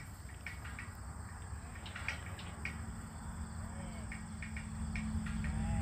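Crickets trilling steadily in one high, even tone over a low rumble, with scattered short clicks.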